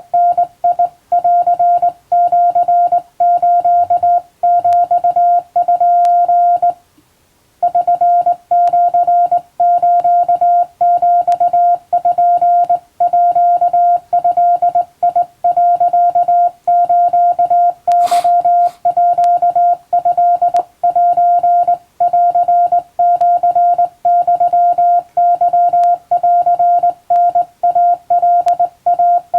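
Hand-keyed Japanese (wabun) Morse code sent as a steady single-pitch beep, switched on and off in short dots and longer dashes. There is a pause of about a second roughly a quarter of the way in, and a sharp click a little past halfway.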